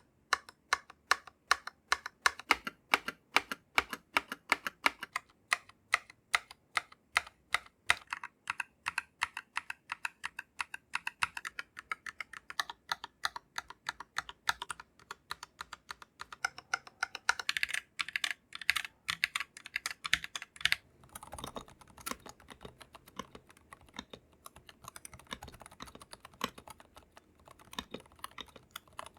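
Typing on an Akko 3087 V2 mechanical keyboard with Akko Pink linear switches, unlubricated from the factory, and Cherry-profile keycaps: a steady run of key clacks, several a second. The clacks grow softer and denser about two-thirds of the way through.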